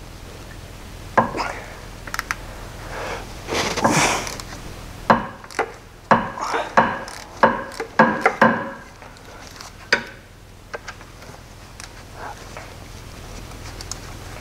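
Wrench working the connecting-rod nuts loose on the crankshaft of a 1.6 L AKL four-cylinder engine. There is a run of sharp metallic clicks and knocks, thickest from about five to nine seconds in.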